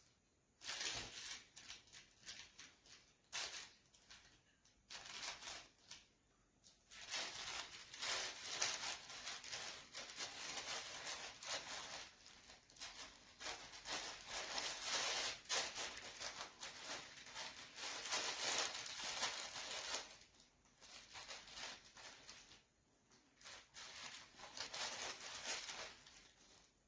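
A dog nosing and rummaging through a fabric snuffle toy for hidden treats: irregular bursts of rustling and crinkling, the longest lasting about a dozen seconds, with short pauses between.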